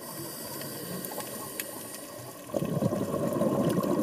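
Underwater sound: a quiet hiss with a few faint clicks, then, about two and a half seconds in, a louder rush of bubbles from a scuba diver breathing out through the regulator.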